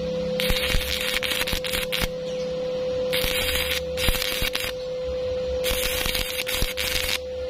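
Electric arc welding: the arc crackles in four bursts of one to two seconds, stopping and restarting, over a steady hum.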